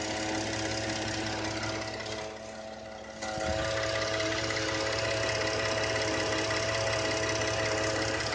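2014 Ford F-150's 3.5 L EcoBoost twin-turbo V6 idling with a steady whine over the engine note, which the owner suspects is a vacuum leak. The sound dips about two seconds in and comes back a little louder after a short knock about three and a half seconds in.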